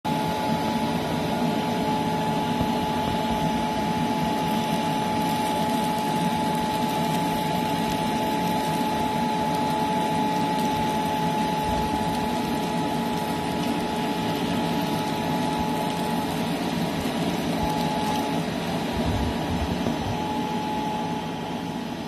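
Homemade bottle vacuum cleaner powered by a computer cooling fan, running steadily as it sucks up wheat grains: a steady high whine from the fan over a rush of air. The whine falters on and off in the last few seconds.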